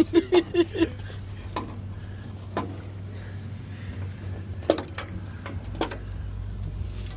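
A few sharp metallic clicks and knocks, a second or more apart, from tools and metal furnace parts being handled, over a steady low hum.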